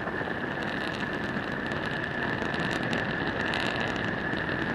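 H-IIA rocket's LE-7A main engine and solid rocket boosters in ascent, a steady, even rushing noise with no breaks.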